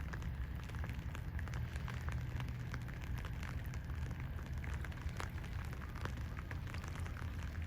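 Steady low rumble with many short, sharp crackles and clicks scattered through it.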